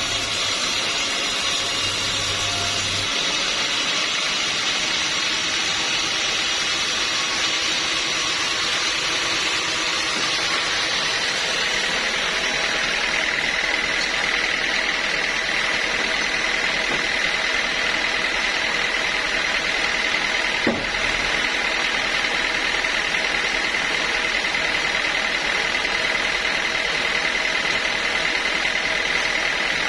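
Sawmill machinery running steadily, with a high whine coming in about twelve seconds in and holding to the end, and one sharp knock about two-thirds of the way through.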